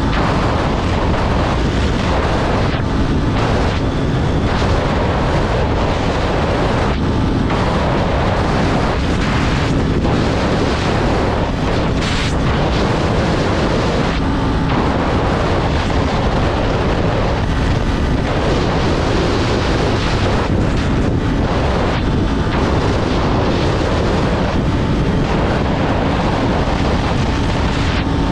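Heavy wind rush buffeting the microphone of a Kawasaki 400 naked bike riding at highway speed, with the engine's steady drone faintly underneath.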